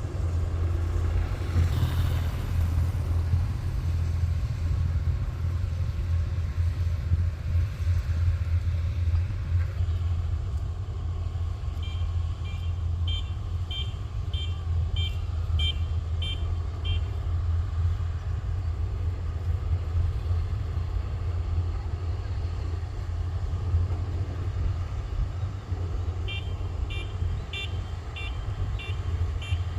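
Kubota rice combine harvester's diesel engine running steadily with a low hum. Twice a high warning beeper sounds in runs of about two beeps a second, once about twelve seconds in and again near the end.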